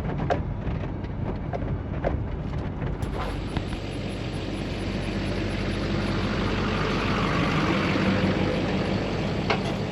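Pickup truck running while driving, heard from inside the cab: a steady low engine hum with a rushing hiss that swells through the middle seconds and a few light knocks.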